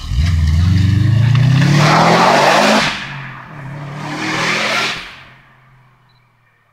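Subaru Impreza rally car accelerating hard out of a hairpin: the engine revs climb, drop at a gear change about three seconds in, climb again, then fade as the car pulls away.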